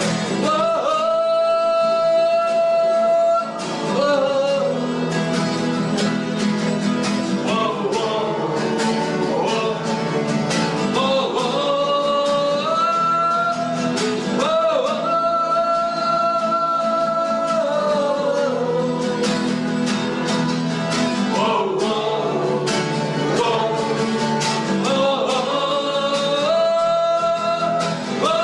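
Music: a song with a singing voice holding long notes over instrumental accompaniment, likely including guitar.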